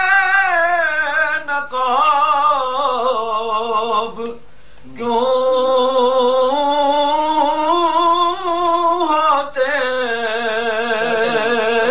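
A man's voice singing an Urdu naat, drawing out long held notes with a wavering, ornamented pitch and brief breaks for breath.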